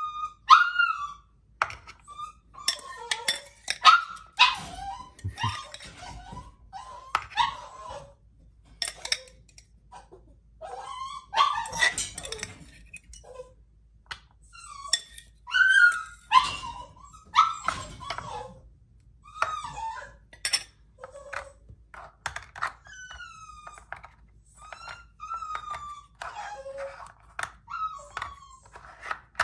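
Dog whining and giving short yelps over and over, impatient while its breakfast is being put out. Mixed in are clinks and knocks of a metal spoon on a ceramic bowl and of plastic puzzle lids being snapped shut.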